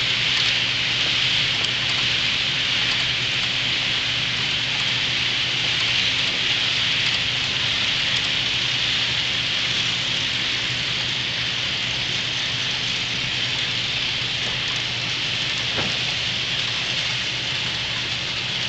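HO-scale model intermodal train rolling past on the track, its many wheels making a steady hiss like rain, over a faint low hum.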